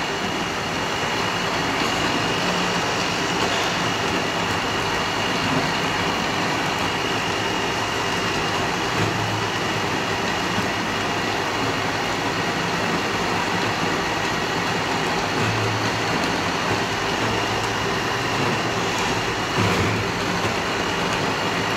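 Electric countertop blender running steadily, its blades churning a jar of thick fruit pulp, with a thin high whine over the motor noise.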